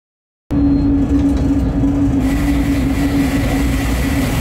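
Bombardier Traxx BR 186 electric locomotive hauling a freight train at speed, heard from inside the cab: a steady hum over a rolling rumble of wheels on track. It starts abruptly about half a second in, and a faint high whine joins about two seconds in.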